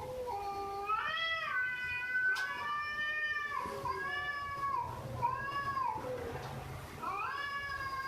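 Domestic cat meowing repeatedly: a string of drawn-out meows, about six or seven, each arching up in pitch and dropping at the end.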